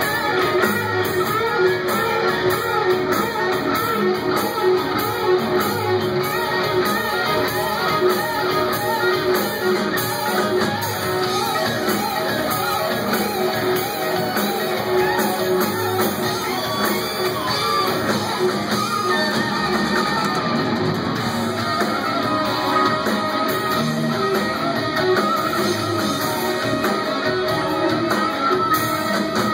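Live rock band playing: electric guitars play wavering, bending lead lines over drums and bass.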